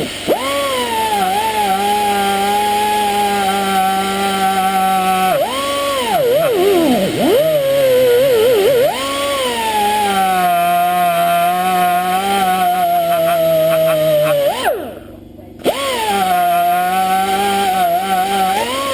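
Air tool spinning a steel wire brush to clean grime from Ford Essex V6 valves, running with a steady whine that sags and wobbles in pitch as the brush is pressed into the work. It stops for about a second near the end, then starts up again.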